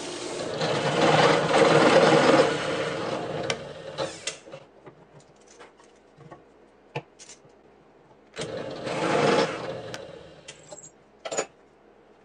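Belt sander running with a wooden rocker pressed against it, then dying away after about three and a half seconds. Then a few sharp knocks and clatters of wood being handled, and about eight and a half seconds in, a second burst of cutting noise as a Forstner bit in a drill press bores into the wood, with a short burst near the end.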